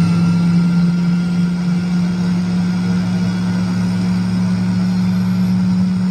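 Emco Unimat SL lathe running with a steady hum while a 2 mm twist drill in the tailstock chuck is fed into the spinning workpiece.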